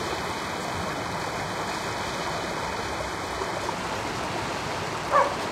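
Steady, even rushing noise, like running water. Near the end, two short, loud, pitched calls about half a second apart.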